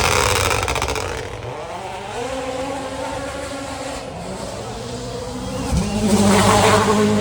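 Rally car engines at racing speed on a stage, the pitch climbing and dropping with gear changes. About six seconds in a car comes in sharply louder at full throttle, with a harsh rasp over the engine note.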